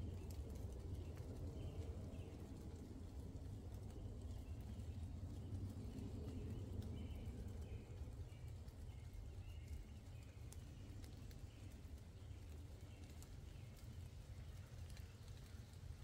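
Forest ambience in light rain: scattered raindrop ticks over a steady low rumble, with a run of short, high bird chirps repeating through most of it.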